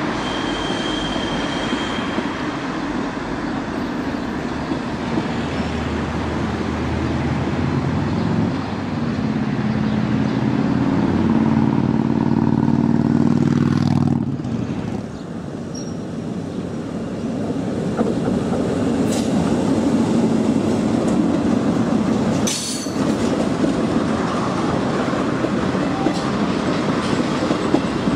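Swiss SBB electric trains rolling through a station: a steady noise of wheels on rails throughout. A low, steady humming drone comes in about eight seconds in and cuts off suddenly near fourteen seconds, and a sharp click comes about twenty-three seconds in.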